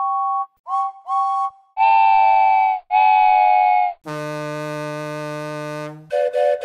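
Cartoon steam-locomotive whistle sound effects: three short two-note toots, then two longer, louder whistle blasts. About four seconds in, a diesel locomotive horn sounds, held steady for about two seconds, and another multi-note whistle starts near the end.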